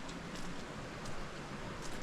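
Creek water flowing steadily beside the trail, with soft footsteps on the path about every 0.7 seconds.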